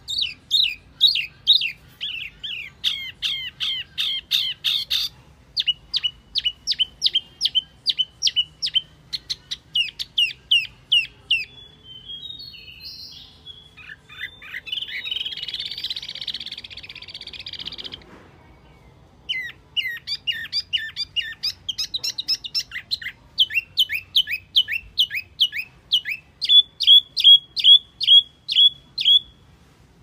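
Recorded song of the small songbird sold as 'wambi mini', played as a lure call: fast runs of repeated down-slurred whistled notes in phrases, with a harsher, scratchy chattering stretch midway, a brief pause, then loud, even repeated notes near the end.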